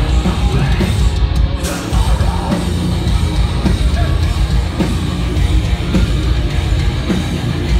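Heavy metal band playing live and loud: distorted guitars, bass and drums, heard from within the audience.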